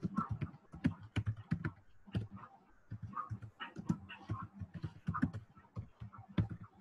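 Typing on a computer keyboard: irregular keystroke clicks, several a second.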